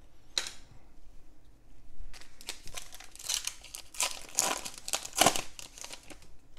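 Foil wrapper of a trading-card pack crinkling as it is torn open, the crinkling loudest about four to five seconds in.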